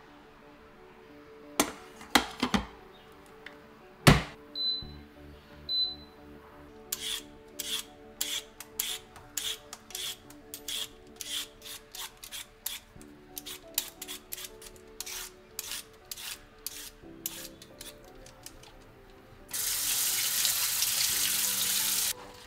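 Vegetable peeler scraping the skin off a purple sweet potato in a long run of quick strokes, about two a second, after a few sharp knocks early on. Near the end a kitchen tap runs loudly for a few seconds. Soft background music throughout.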